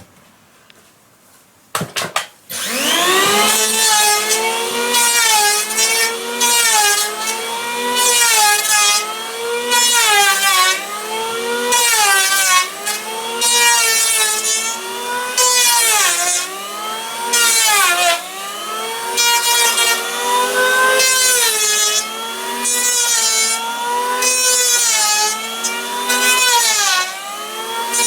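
Chainsaw engine revving up and cutting wood, its pitch dropping as the chain bites in and rising again about every two seconds. It starts after a few brief knocks about two seconds in.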